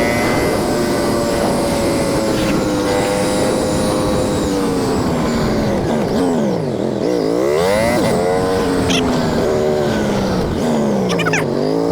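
Motorcycle engine running on the move, with rushing wind. Its pitch drops sharply as the bike slows about seven seconds in, then climbs as it accelerates, and dips and rises again near the end.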